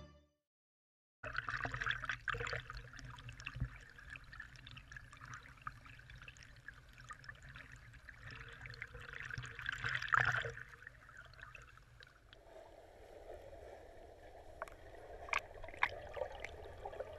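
Water splashing and sloshing from a swimmer's front crawl strokes, starting about a second in, with a louder surge about ten seconds in. From about twelve seconds in the sound turns muffled, heard underwater, with a few sharp clicks.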